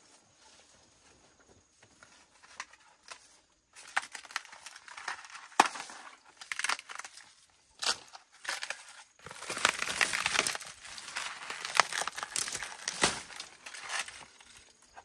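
Dry, dead vines and leaves crackling, snapping and rustling as dried gourds are pulled down from a trellis. It starts about four seconds in as a run of sharp cracks and crackly rustles, is busiest a few seconds later, and dies away near the end.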